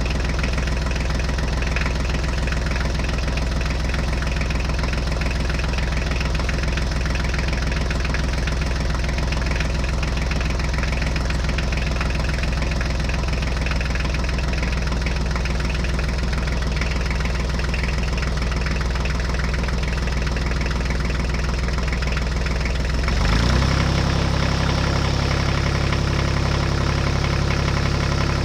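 An engine running steadily at idle. About 23 seconds in, its note steps up in pitch and gets a little louder.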